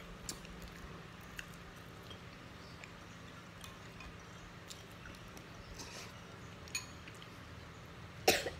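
Quiet sounds of a person eating by hand from a bowl, with scattered small clicks and light mouth sounds over a faint low hum. A single short cough comes near the end and is the loudest sound.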